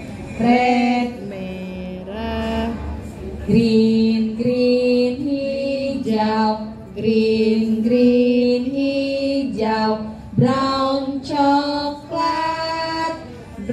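A woman and young children singing a colours song, naming the colours in English and Indonesian ("green, hijau") in long held notes.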